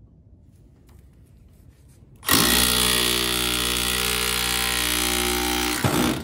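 Rotary hammer driving a long punch against a rusted motor shaft to knock it out of a blower wheel's hub: one steady run of hammering lasting about three and a half seconds, starting about two seconds in and cutting off suddenly.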